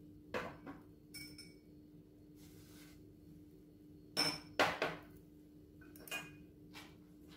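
Kitchen dishes and utensils clinking and knocking against each other and the countertop: a few scattered knocks and clinks, one with a short ringing tone about a second in, the loudest pair about four seconds in. A faint steady hum runs underneath.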